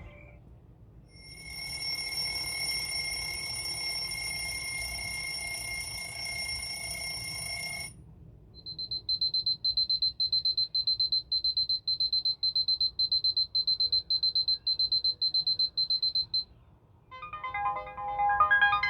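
Anker Soundcore Wakey alarm clock speaker playing its alarm sounds in turn. First comes a steady high electronic ringing tone for about seven seconds. After a short gap there is a fast high-pitched beep, about two and a half beeps a second, for about eight seconds. Near the end a melodic chime tune starts.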